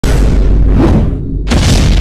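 Intro music with a deep, heavy bass boom. About one and a half seconds in there is a sudden hit.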